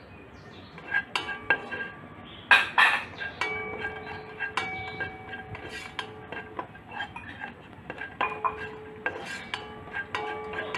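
A spatula stirring cashew nuts frying in butter in a metal nonstick pot, knocking and scraping against it. Several of the knocks leave the pot ringing for a second or two.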